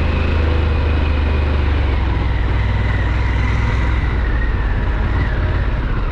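Harley-Davidson Pan America's Revolution Max 1250 V-twin engine running steadily under way, a continuous low rumble with a faint high whine that slides slightly lower partway through.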